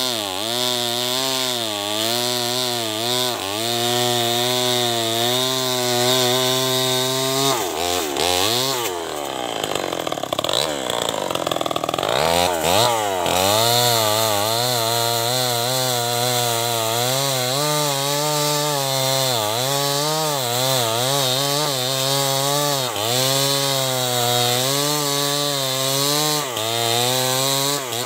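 Stihl 070 two-stroke chainsaw at full throttle cutting through a dead log, its pitch wavering as the chain bites into the wood. About a quarter of the way in, the engine drops off and its revs swing down and back up for a few seconds before it settles back into the cut. It eases off right at the end.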